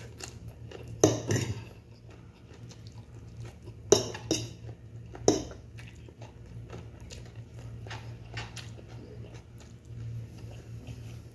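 Metal fork clinking and scraping against a ceramic plate, with sharp clinks about a second in, near four seconds and again just past five seconds, over a low steady hum.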